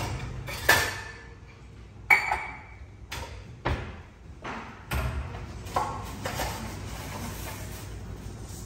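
Metal cookware being handled: a pull-out pot drawer opened and a small stainless saucepan taken out and set on the cooktop, giving about seven sharp clanks and pings, the loudest near the start and about two seconds in.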